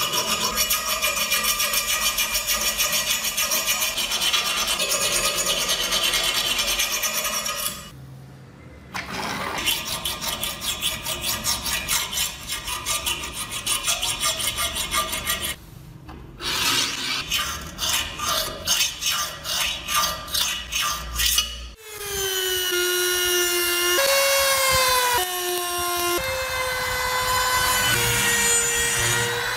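Hand file rasping back and forth on the edges of a cast-iron frame in quick strokes, broken twice by brief pauses and then slowing to about two strokes a second. About two-thirds of the way through, a rotary tool takes over with a high whine that drops in pitch and then shifts between steady pitches as it grinds the metal.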